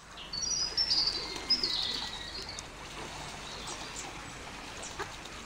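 A small bird singing a high, warbling phrase of quick stepped notes over the first two seconds or so, followed by a few short, faint chirps.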